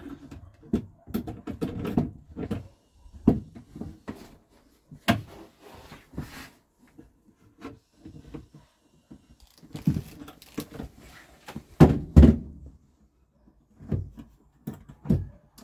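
Irregular knocks, clunks and rustling from a wardrobe door and its concealed hinge being handled and adjusted by hand, the loudest clunks about twelve seconds in.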